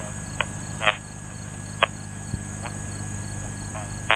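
Insect chorus of crickets: a steady high trill with a pulse repeating about three times a second, broken by a few short, sharp chirps. Under it runs a faint, steady low drone from the distant Cessna 177RG Cardinal's engine as it climbs away.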